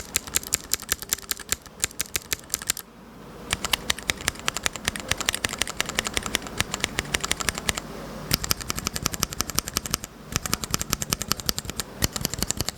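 Fast typing on a Keychron mechanical keyboard with Gateron switches and keycaps fitted: a rapid stream of sharp key clicks. It stops briefly about three seconds in and twice more later.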